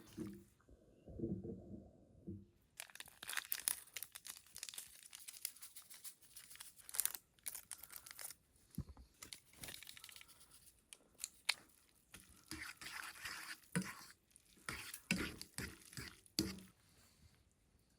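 Plastic ramen packaging crinkling and tearing open in irregular bursts.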